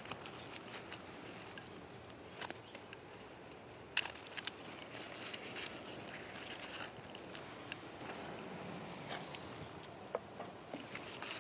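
Faint outdoor garden ambience: a steady high insect drone with scattered soft clicks and rustles, two sharper clicks at about two and a half and four seconds in.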